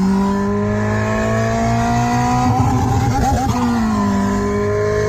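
Synthetic Ferrari-style engine sound from a RevKing OBD device, played through a car's speakers and following the car's RPM. Its pitch climbs steadily, wavers and drops about three and a half seconds in, then starts climbing again.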